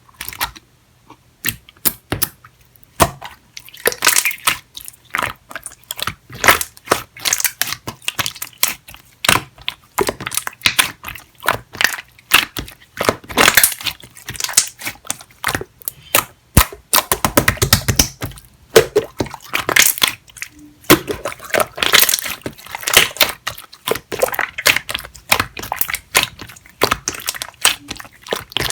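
Hands squeezing and poking a clear, jelly-textured slime, making a dense, irregular run of sharp sticky clicks and pops.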